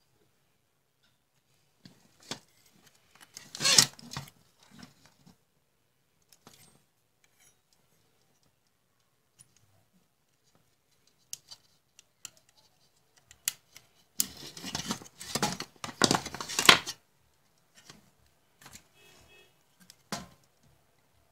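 Handling noise from an opened computer power supply: its metal case, circuit board and wires being moved and turned over. Scattered clicks, with two longer spells of rustling and scraping, one a few seconds in and one about two-thirds of the way through.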